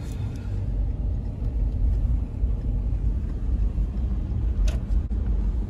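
Steady low rumble of a vehicle driving on a road, heard from inside the cabin. A brief click sounds about a second before the end.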